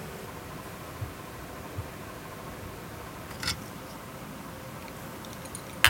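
Scallops in their shells sizzling steadily on a wire grill over charcoal, with a few faint pops. A sharper click comes about three and a half seconds in and another near the end.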